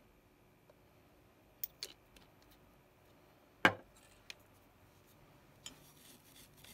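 Scattered small clicks and taps of soldering tools on a workbench, the loudest a single sharp tap a little past halfway. Near the end, a soldering iron tip is scraped through a brass wool tip cleaner: a brief scratchy rustle ending in a click.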